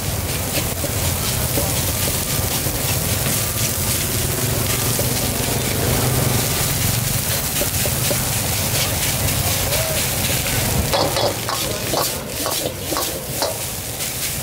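Fried rice sizzling in a steel wok as a metal ladle stirs and scrapes it, over a steady low rumble. In the last few seconds the ladle clinks sharply and repeatedly against the wok.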